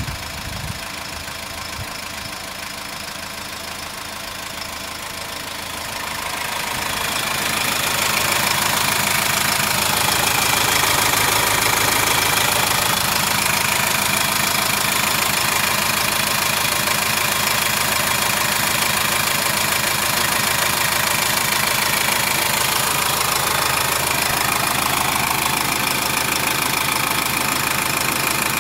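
Subaru Forester's 2.0-litre turbo-diesel boxer engine (EE20) idling steadily with the bonnet open. It grows louder about six to eight seconds in and then holds steady.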